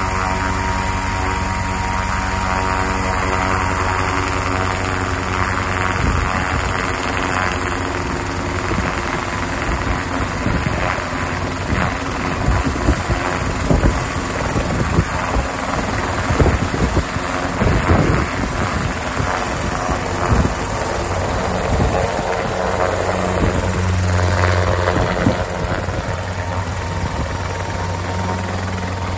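Prototype all-electric Mosquito ultralight helicopter running: the electric drive motor's steady whine and the rotor's chop. From about six seconds in, irregular low thumps and rushing air from the rotor join it.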